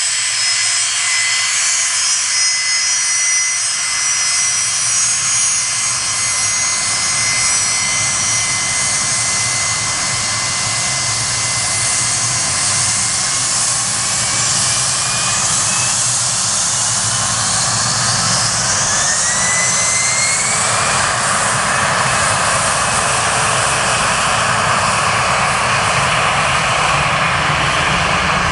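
Gulfstream G450 business jet's twin Rolls-Royce Tay turbofans: a steady whine at first, then a rising whine as the engines spool up to takeoff thrust about halfway through, followed by a louder, fuller rush of jet noise as the takeoff roll gets under way.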